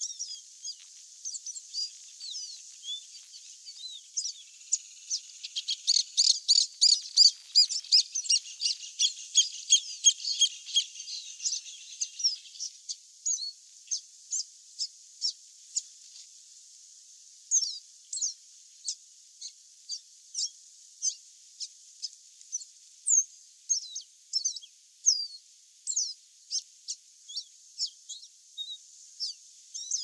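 Male chestnut seedeater singing. A few seconds in there is a fast, dense run of high, varied whistled notes. After that come separate short, high whistles and chirps, mostly falling in pitch, about two a second.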